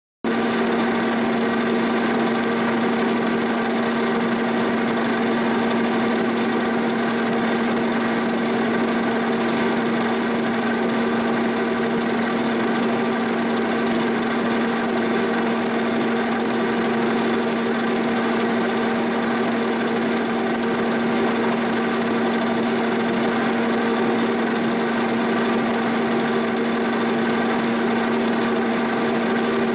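Milling machine taking a boring-bar cut through the bore of a prehard 4140 steel backhoe boom piece: a steady pitched hum with many overtones that starts abruptly and holds even.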